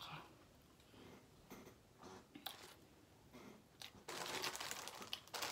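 A few scattered crunches of someone chewing crunchy food, then, about four seconds in, loud continuous crinkling of food packaging being handled.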